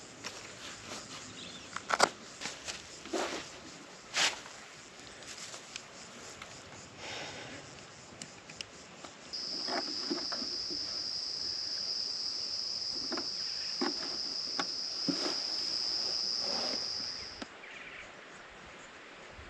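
An insect's steady high-pitched buzz starts about nine seconds in, holds for about eight seconds and stops. It follows a few scattered knocks and clicks in the first half.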